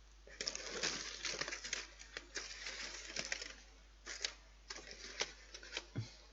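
Crinkling and rustling of a small chocolate wrapper being handled, dense for about three seconds, then a few scattered crackles and clicks.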